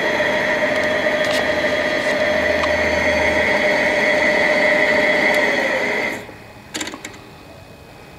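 Vectrax GS-20V vertical mill head running under power with a steady high whine, stopping abruptly about six seconds in, followed by a few light clicks.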